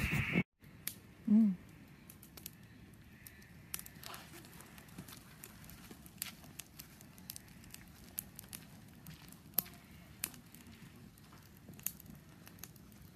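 Wood campfire crackling: scattered sharp snaps and pops, a few a second, over a faint hiss. About a second in, a short voice sound briefly rises above it.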